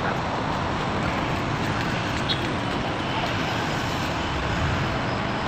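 Steady road traffic noise from vehicles passing on a city street.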